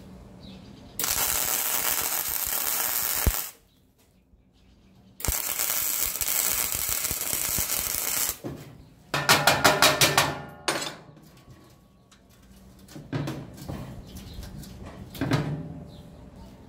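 Wire-feed (MIG) welder arc-welding steel, a coil-spring handle being welded onto a tank lid: two steady welds of about two and a half and three seconds, each starting and stopping abruptly. Then a quick run of about six sharp taps, and a few fainter knocks near the end.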